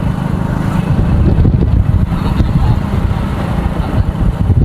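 A road vehicle running, buried in a loud, steady low rumble like wind buffeting the microphone while on the move.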